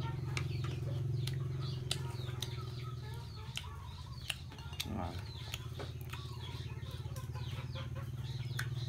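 A steady low hum with a slight pulse, like a small motor running, under many short, high, falling chirps from birds, with a few light clicks.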